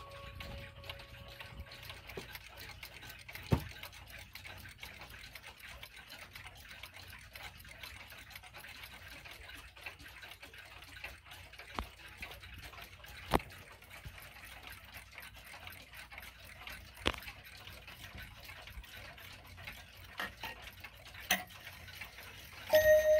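Several mechanical pendulum wall clocks ticking together in a fast, dense patter, with a few sharper clicks. The last chime tones of a wall clock die away during the first two seconds, and near the end a Junghans wall clock begins to chime.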